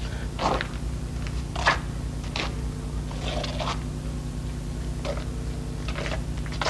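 Steady low hum with a few brief, faint knocks or scuffs scattered through.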